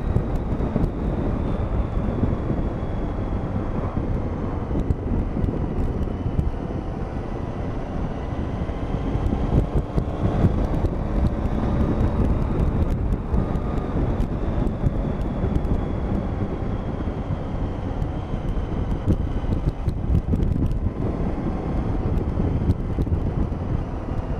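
Triumph Tiger 800 motorcycle riding at road speed: wind buffeting on the microphone over a steady low rumble, with the engine note slowly rising and falling as the throttle changes.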